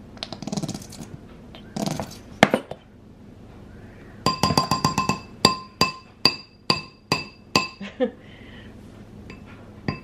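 A plastic measuring spoon is tapped quickly against a ceramic mixing bowl about a dozen times, each tap making the bowl ring briefly at the same pitch; this knocks mustard off the spoon. Before that come a couple of soft scrapes and a single knock.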